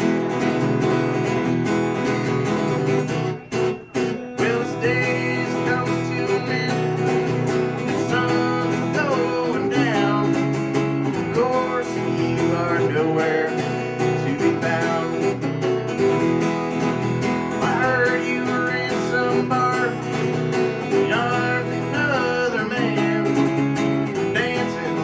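Live country song on a steel-string acoustic guitar, strummed steadily, with a man singing into the microphone. The singing comes in about five seconds in, after a stretch of guitar alone. The sound drops out briefly twice about three and a half seconds in.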